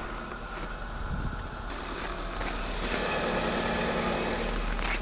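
Renault Arkana engine idling steadily just after a cold start in hard frost. About two seconds in, a higher hiss joins the steady hum and the sound grows a little louder.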